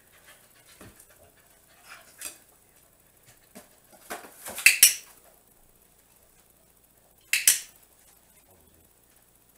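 A dog stepping and shuffling in a shallow cardboard box, with short sharp clicks and rustles: a cluster a little before halfway, and a quick double click about three quarters of the way in.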